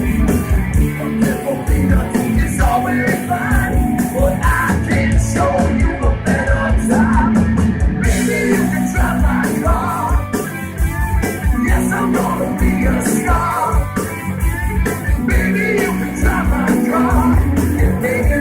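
Rock band playing loud live: distorted electric guitars, bass and fast driving drums, with sung or shouted vocals. The cymbals thin out for a few seconds about five seconds in, then come back.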